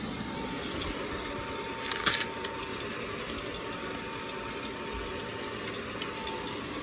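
ROEST sample coffee roaster running mid-roast, a steady rush of air with a faint steady whine. A brief cluster of clicks and rattles comes about two seconds in, and a single click near the end.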